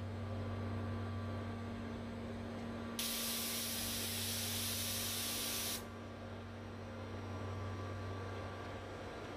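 York screw chiller running with a steady low hum. About three seconds in, a loud hiss starts abruptly, holds for nearly three seconds and cuts off suddenly.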